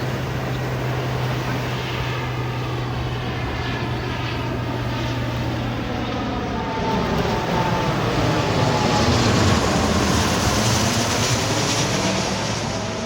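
An airplane flying past overhead, its engine noise swelling to a peak about two-thirds of the way through and then easing off, with a sweeping, shifting tone as it goes by. A steady low hum runs underneath.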